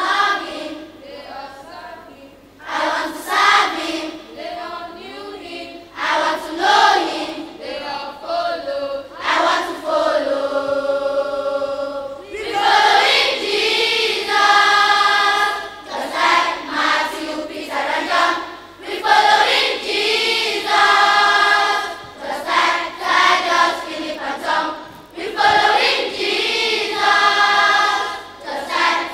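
Large children's choir singing a gospel song about following Jesus just as the apostles did, in phrases with short breaks and a long held note about ten seconds in.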